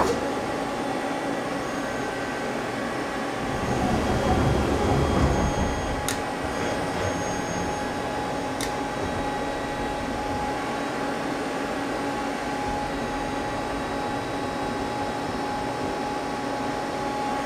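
Steady hum of an idling Mazak CNC lathe, with faint whining tones over it. A low rumble swells for a couple of seconds about four seconds in, and two sharp clicks come about six and eight and a half seconds in.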